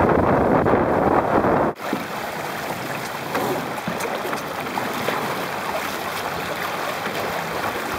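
Water rushing and splashing past a Hobie sailboat's hull under way, with wind buffeting the microphone. About two seconds in it cuts abruptly to a quieter, steady wash of water and wind with a few small ticks.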